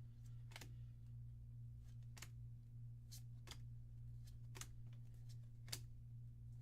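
A booster pack of trading cards being opened and the cards handled: a few faint, sharp snaps and flicks about a second apart, over a steady low electrical hum.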